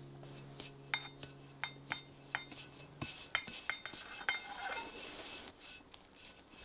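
A metal palette knife clicking and clinking sharply about a dozen times, then scraping as whipped cream is spread over a sponge cake layer. A held background music note stops about halfway through.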